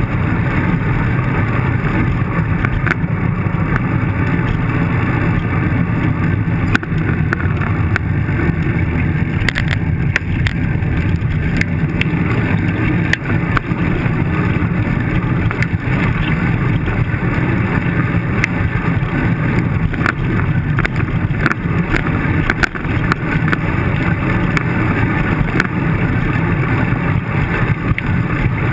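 Steady wind rush and road rumble on the microphone of a handlebar-mounted camera on a moving bicycle, with frequent small clicks and rattles as the bike rolls over rough pavement.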